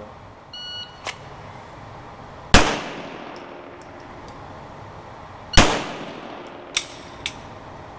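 Two pistol shots about three seconds apart, each a sharp, very loud crack with a long echoing tail, the first one rushed. A short electronic beep comes just before them, and two lighter sharp clinks come near the end.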